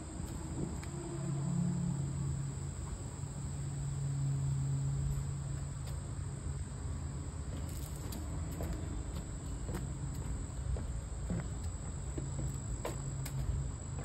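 Insects trilling in a steady high-pitched drone, over a low hum, with a few faint clicks in the second half.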